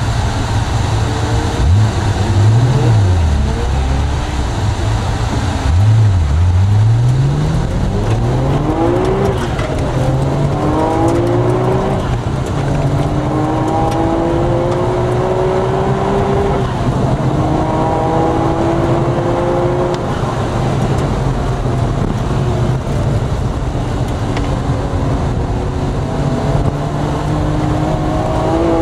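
Nissan GT-R cars running hard on a track. The engine note climbs steadily through each gear and drops sharply at every change, after two louder swells about two and six seconds in.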